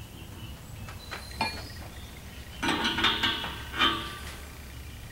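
Steel open-end wrench clinking and rattling against the brass air fittings as it is handled: a light click, then a short cluster of ringing metal clinks about halfway through.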